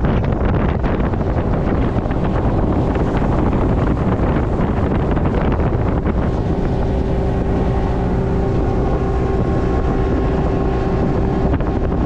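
Boat motor running under way, with heavy wind buffeting the microphone; a steady engine hum comes through more clearly about halfway in.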